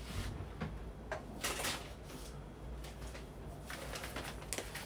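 Faint, scattered knocks and rustles of kitchen items being handled, over a low steady room hum.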